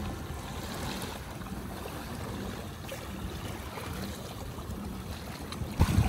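Sea water sloshing against a kayak hull as it moves over open-ocean chop, with wind on the microphone. A short, louder burst near the end.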